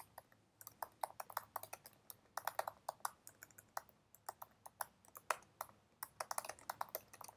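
Typing on a computer keyboard: quick, irregular runs of key clicks with brief pauses between them.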